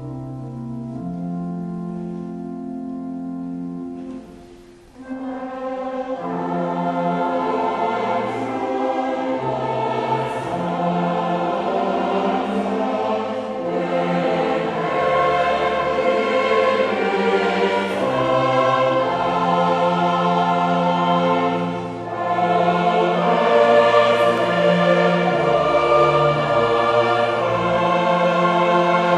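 Mixed church choir singing a hymn with an orchestra of clarinets, trumpets and strings. It opens with a few seconds of held instrumental chords; after a brief break about five seconds in, the choir comes in and the music grows fuller and louder.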